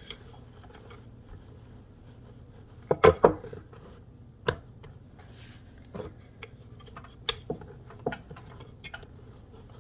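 Wooden rolling pin knocking and clattering on a wooden cutting board as seitan dough is rolled out and flipped: a quick cluster of knocks about three seconds in, the loudest, as the pin is set down, then scattered single knocks as rolling resumes.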